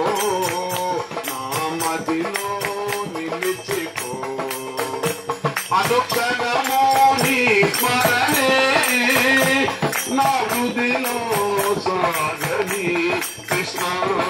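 Devotional song: a singing voice carrying a melody over a steady, quick rhythm of jingling hand percussion.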